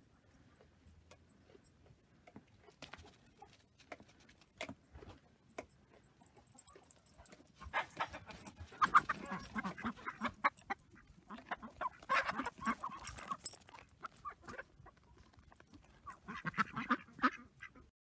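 Domestic ducks quacking in three bouts of rapid repeated calls, near the middle, again a few seconds later and near the end, after some seconds of faint scattered ticks.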